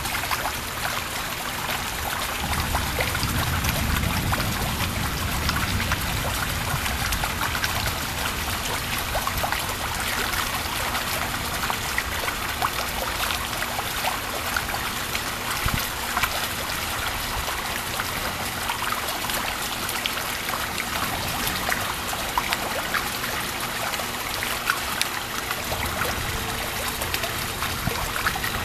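Thunderstorm rain falling steadily, with water trickling and running off and many sharp drop impacts close by. A low rumble swells a few seconds in and again near the end.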